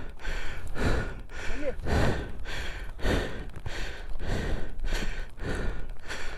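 Heavy, rapid breathing close to the microphone, about two breaths a second: a person out of breath after lifting a heavily loaded motorcycle. A brief short vocal sound comes about a second and a half in.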